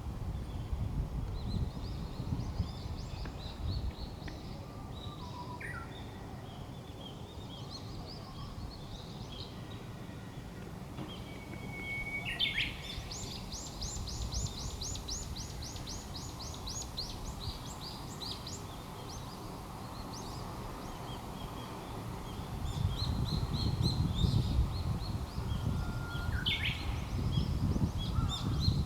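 Japanese bush warbler singing its "hoo-hokekyo" song twice: a long held whistle breaking into a quick rising phrase, once near the middle and once near the end. Between the two songs, a fast run of high repeated notes lasts about five seconds. Fainter chirps and a low rumble sit underneath, and the rumble grows louder near the end.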